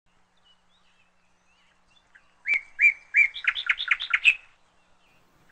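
A bird singing: faint twitters, then about two and a half seconds in a loud phrase of three clear repeated notes running into a quick series of chirps.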